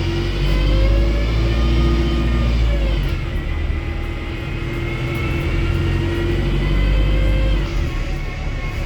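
Wrightbus StreetDeck HEV bus with a Mercedes-Benz OM934 engine and Voith gearbox, accelerating under a heavy low engine rumble. A whine climbs steadily in pitch, drops back about three seconds in, climbs again and drops once more near the end.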